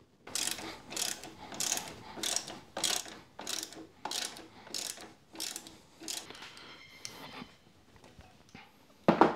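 Ratchet wrench worked back and forth to tighten a bolt on a motorcycle top-box mounting plate, with a burst of pawl clicks on each back-stroke, roughly three strokes every two seconds. After about six seconds the strokes turn weaker and sparser, and a single sharp knock comes just before the end.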